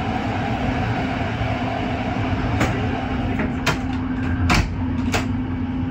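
Moving passenger train heard from inside the carriage: a steady rumble with a low hum, and four sharp knocks about two and a half to five seconds in, the third the loudest.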